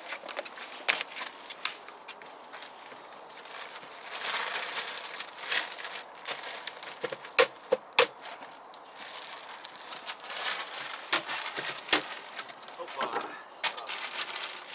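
Bursts of rustling and crinkling with scattered sharp clicks and knocks, a few in quick succession about halfway through: handling noise of materials being moved about.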